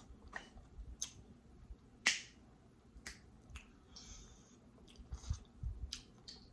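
Snow crab leg shells being cracked and snapped apart by hand to get the meat out: a run of sharp cracks, the loudest about two seconds in.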